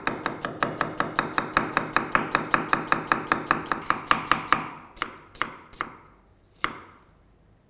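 Knife slicing a red onion finely on a wooden chopping board: quick, even strokes of the blade on the board, about six a second, that give way to a few single strokes after about four and a half seconds and then stop.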